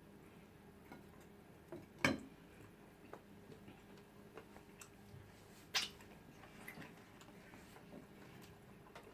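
Eating sounds: scattered soft wet clicks and smacks of chewing and mouth noises, with two louder sharp clicks about two and six seconds in.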